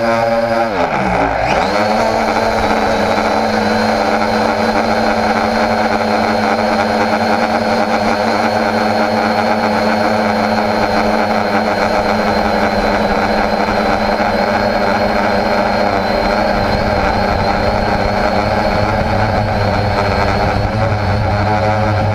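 Homemade quadcopter's electric motors and propellers, heard from the GoPro mounted on it, humming steadily in flight. About a second in the motor pitch dips sharply and swings straight back up, then holds steady with a thin high whine on top.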